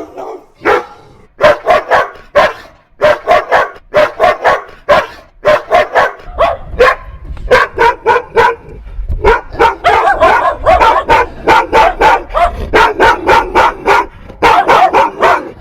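Several angry dogs barking in short, sharp, rapid barks that overlap more densely from about six seconds in, with a low rumble underneath from then on.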